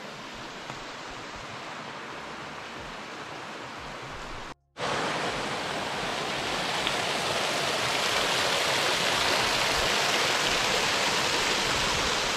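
Steady rush of water spilling over a small concrete reservoir spillway and tumbling down a rocky creek. It is softer at first, breaks off briefly about four and a half seconds in, then comes back louder.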